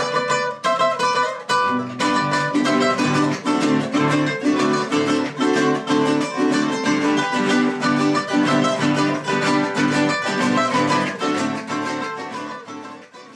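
A small acoustic string band plays: a plucked melody starts alone, and lower guitar notes join in about two seconds in. The music fades out near the end.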